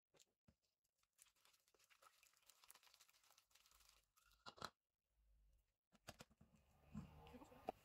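Mostly near silence, with a few faint sticky clicks and tearing sounds of slime being kneaded and pulled from a plastic bowl by hand. The loudest comes about four and a half seconds in, with a small cluster near the end.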